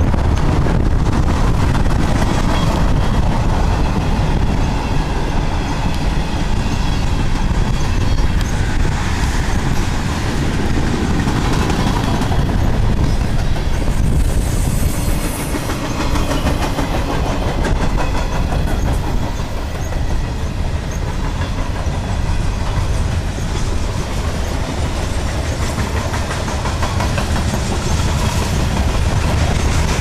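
Freight cars rolling past, steel wheels on the rails, a steady rumble that holds through the whole train.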